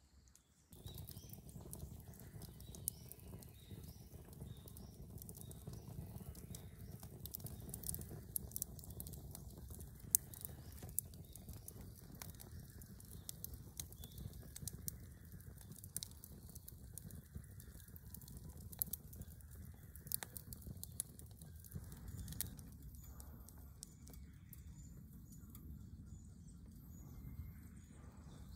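Wood campfire burning, a steady low rush of flames with scattered crackles and pops, starting suddenly about a second in.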